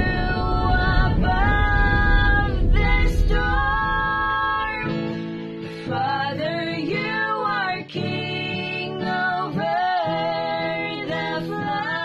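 Two young women singing a slow worship song to guitar accompaniment, with a low rushing noise beneath the singing that stops about five seconds in.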